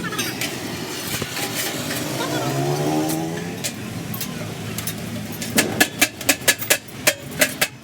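Workshop noise: an engine revving up briefly, rising in pitch, then a quick run of sharp metallic knocks near the end.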